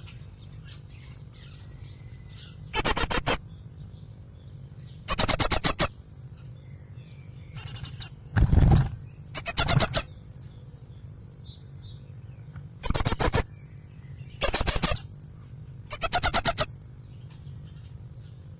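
Great tit inside a nest box calling in short bursts of rapid repeated notes, six or seven bursts a couple of seconds apart, one of them about eight seconds in with a low thump. A steady low hum runs underneath.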